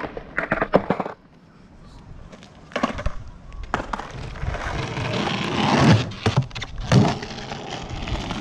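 Skateboard on street asphalt: a few sharp clacks of the board in the first second, then from about four seconds in the steady rumble of the wheels rolling, building, with two louder knocks about a second apart.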